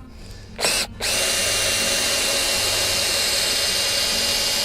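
Electric power tool, drill-like, running: a short blip of the trigger, then a steady run of about four and a half seconds with a high whine.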